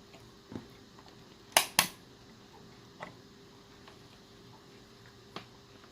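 Two sharp plastic clicks in quick succession about a second and a half in, with a few lighter knocks, from handling a charging adapter and plugs at a power socket.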